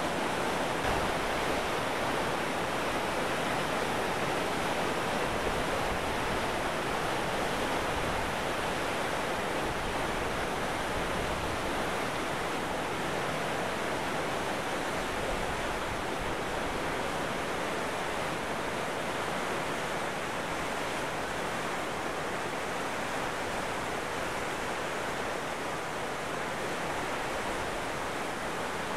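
Rushing whitewater of a swollen creek pouring over a low dam and churning through rocky rapids: a steady, even rush that eases slightly toward the end.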